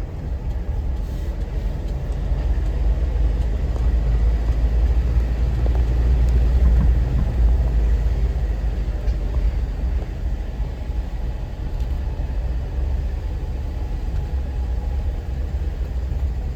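Steady low rumble of a trail vehicle driving downhill on a mountain road, heard from inside the vehicle; it swells slightly around the middle.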